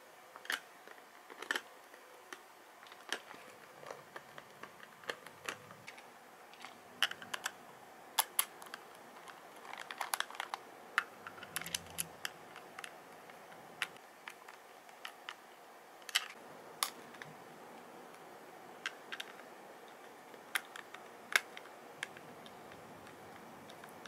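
Small screwdriver tightening screws into a clear plastic robot-toy body: faint, irregular clicks and ticks as the screws turn and the plastic shell is handled.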